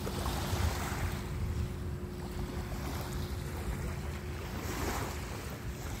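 Small, gentle waves lapping and washing onto a shell-and-pebble beach, swelling twice, with wind rumbling on the microphone and a faint steady hum underneath.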